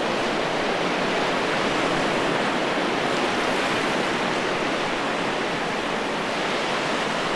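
Ocean surf breaking on the reef: a steady, even wash of waves.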